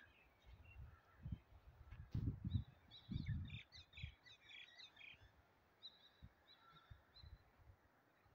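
Faint outdoor birds chirping, with a quick run of short chirps about three seconds in and a few more around six to seven seconds. A cluster of low rumbling thumps about two to three and a half seconds in is louder than the birds.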